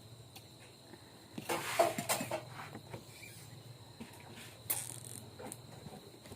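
Cutlery clinking and scraping on a plate during a meal: a short clatter about a second and a half in and a brief scrape near the end, over a faint steady hum.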